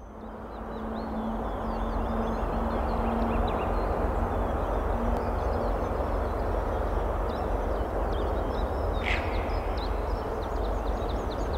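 Outdoor ambience fading in: a steady low rumble with many small birds chirping over it, and one short louder sound about nine seconds in.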